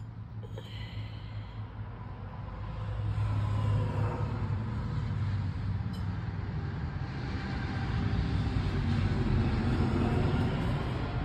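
Road traffic going past: a low engine rumble with tyre noise that swells about three seconds in, eases, and swells again later.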